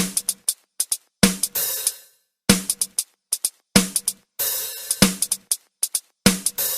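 Background music intro: a drum-machine beat with a heavy kick-and-snare hit about every 1.25 seconds, quick hi-hat ticks between, and cymbal washes after some of the hits.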